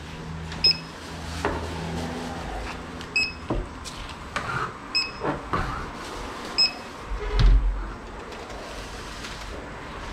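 Short electronic checkout beeps, four identical beeps a couple of seconds apart, among knocks and rustles of items being handled on a shop counter, with a dull low bump about seven seconds in.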